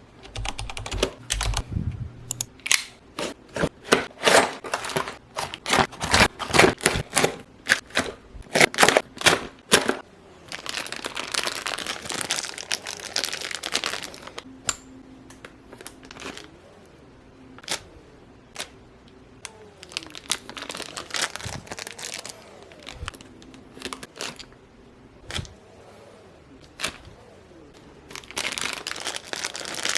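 Toy packaging being opened by hand: a quick run of sharp clicks and taps in the first ten seconds, then stretches of plastic crinkling and tearing, with single clicks in between.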